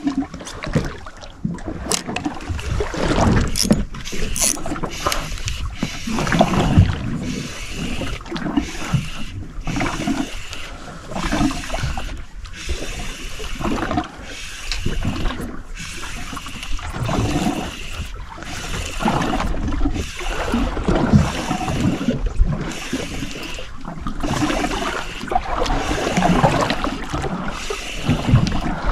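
Water lapping and splashing against a small fishing boat's hull, with wind on the microphone. The noise swells and fades unevenly every second or two.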